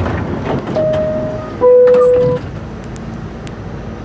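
New York City subway car's door-closing chime: two steady tones, the second lower and louder, each under a second long, signalling that the doors are about to close. A steady low rumble of the car runs under it.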